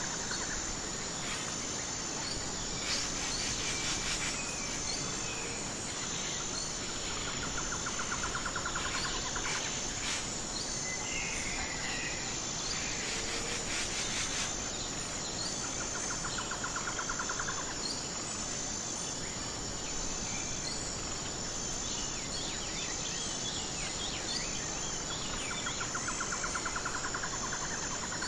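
Insects chirping in a steady, high-pitched pulsing drone, with a lower rapid trill that returns about every eight seconds and a few scattered bird chirps.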